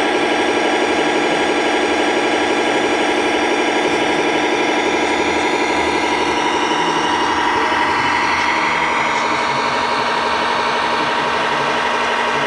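Steady diesel-truck engine sound from a radio-controlled MAN truck, running evenly with no revving.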